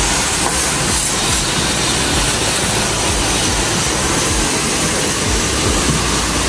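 High-pressure washer jet spraying water onto a car, a loud steady hiss.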